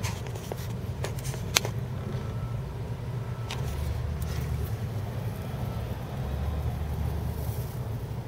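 Steady low background rumble, with a few sharp clicks in the first two seconds, the loudest about one and a half seconds in.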